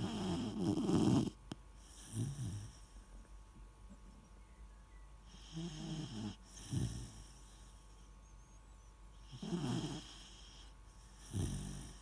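Weimaraner puppy snoring in its sleep: a rattly snore with each breath, every few seconds, the loudest at the start.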